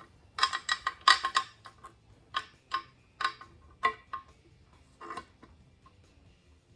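Small metal hardware clinking, as loose bolts are rummaged through while looking for a missing one: a quick flurry of sharp, ringing clinks in the first second and a half, then single clinks every half second or so until about five seconds in.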